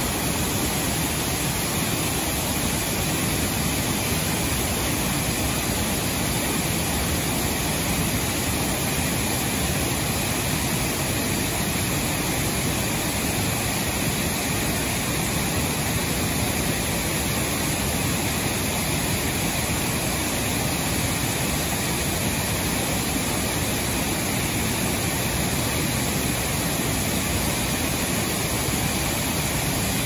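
Wide, low curtain waterfall pouring over a rock ledge onto a rocky riverbed: a steady, unbroken rush of falling water.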